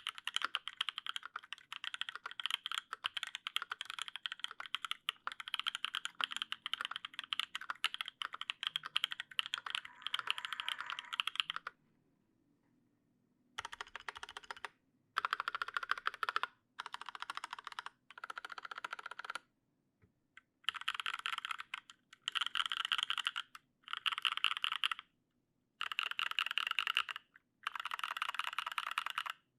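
LZ CLSm custom mechanical keyboard with lubed Paco switches in an aluminium plate and GMK keycaps, typed on steadily for about twelve seconds. After a short pause come about ten separate bursts of rapid keystrokes, each about a second long.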